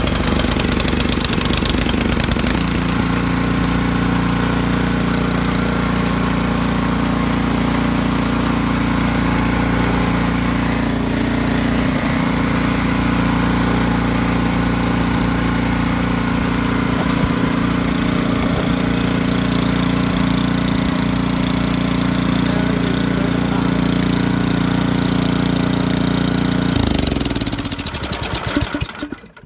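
Snowblower's LCT gas engine running steadily on a cold start with the choke set, settling into an even run about two seconds in. Near the end it is shut off: its pitch falls as it winds down and stops.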